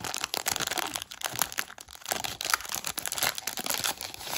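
Plastic wrapper of a 1992 Score baseball card pack crinkling and tearing as it is pulled open by hand, a dense run of crackles that stops near the end.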